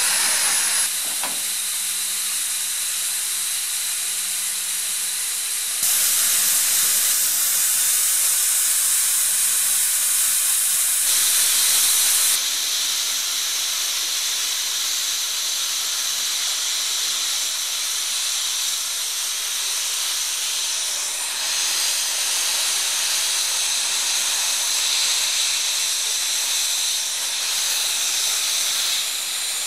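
Steam locomotive hissing steam: a continuous hiss with no exhaust beat, jumping abruptly louder and softer several times in the first twelve seconds.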